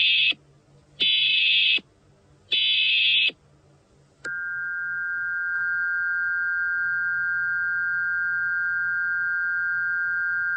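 Emergency Alert System-style alert signal: three harsh buzzing bursts of header data tones about a second and a half apart, then, about four seconds in, a steady two-note attention tone that holds without a break.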